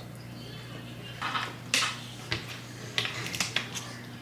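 Takeout food packaging being handled: short rustles and several sharp clicks from about a second in, over a steady low hum.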